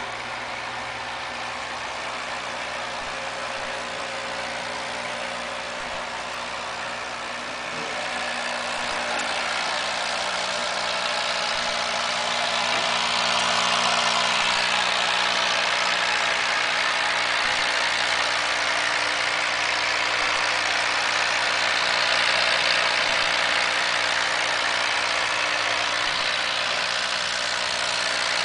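Small mains-powered machine, likely the air pump feeding the tubing, running steadily: a constant hum under a hiss that gets louder about eight seconds in and then holds.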